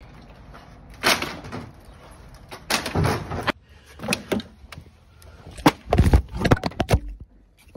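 Old weathered wooden playset boards being broken apart, cracking and knocking in several loud bursts. About six seconds in, the phone falls and tumbles against the wooden frame, giving the heaviest thumps and a clatter before things go quiet.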